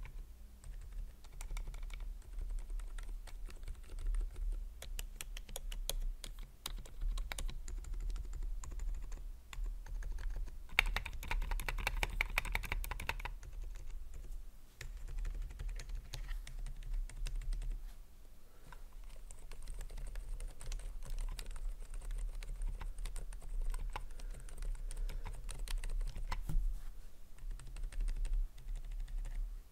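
Typing on a Keychron K10 Pro mechanical keyboard fitted with Outemu Silent Peach V2 silent linear switches: a steady stream of keystrokes, with a faster, louder flurry about eleven to thirteen seconds in.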